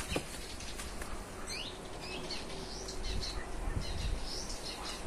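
Small songbirds chirping and singing in garden trees, several short chirps and whistled notes, over a low wind rumble on the microphone.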